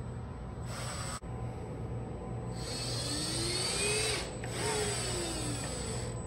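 Fanuc collaborative welding robot's joint motors whining as the arm travels, in two moves in the second half, each with a pitch that rises and falls as the arm speeds up and slows down, over a hiss and a steady low hum.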